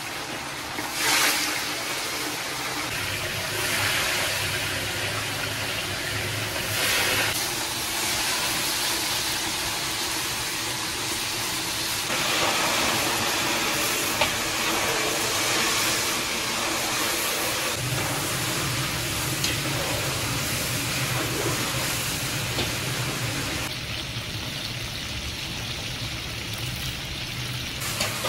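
Large pieces of meat sizzling and searing in hot oil, a steady hiss that swells several times.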